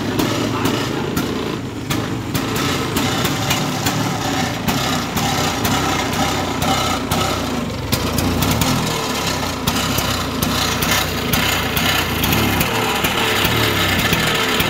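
Vintage Vespa scooter's two-stroke single-cylinder engine running at a steady idle.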